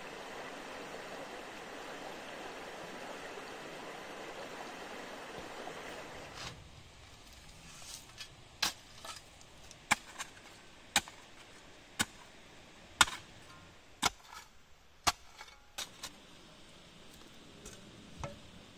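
Steady rush of a stream, cut off about six seconds in, then a run of sharp tool strikes on wood, about one a second, as in building a log shelter.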